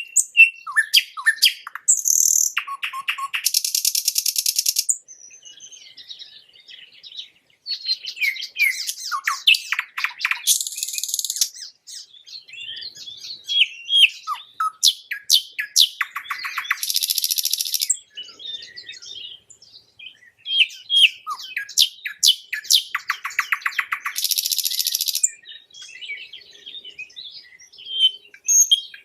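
Nightingale singing: phrases of quick whistled and chirped notes, each building to a fast rattling trill, repeated about every six or seven seconds with brief pauses between.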